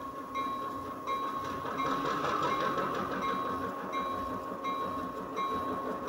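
TCS WOW Sound decoder's diesel locomotive engine sound, played through twin Tang Band speakers in an HO scale Stewart F7 B unit. The engine notches up as the decoder auto-notches with the locomotive held back by its coupler, so the motor is working harder. A steady high whine runs underneath, and the sound grows gradually louder.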